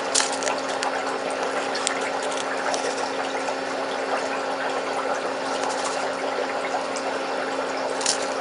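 Steady background hum and hiss, with a few faint clicks as small plastic bags of nail glitter are handled, one near the start and one near the end.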